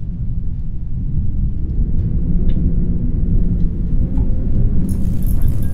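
Deep, steady rumble with a faint held tone above it, as in a title-sequence drone. A high, shimmering hiss joins it near the end.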